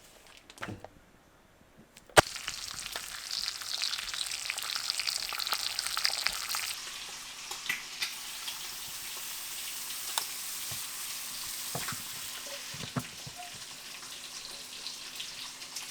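Bacon frying in a hot pan. A sharp click about two seconds in, then a sudden loud sizzle that is strongest for the next few seconds and then settles into a steady sizzle.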